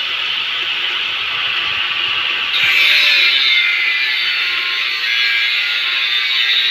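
Angle grinder working on steel: a steady, harsh grinding noise that grows louder and brighter about two and a half seconds in as the disc bites harder into the metal.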